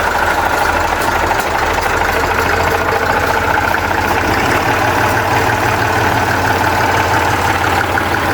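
Massey Ferguson 35X tractor engine running steadily after its warm-up.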